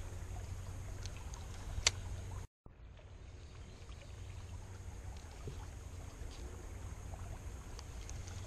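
Creek-bank outdoor ambience during a cast: a steady low rumble with faint water-like hiss, and one sharp click about two seconds in. The sound cuts out completely for a moment just after the click.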